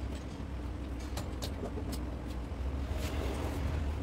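Steady low workshop rumble with a faint hum, broken by a few faint light clicks.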